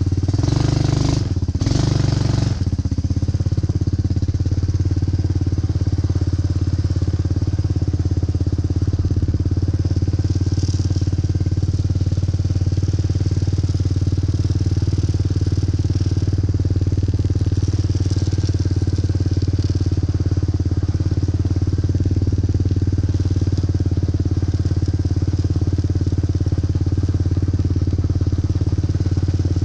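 Four-wheeler (ATV) engine running steadily under way, a constant low drone, with two short rushes of noise about a second and two seconds in.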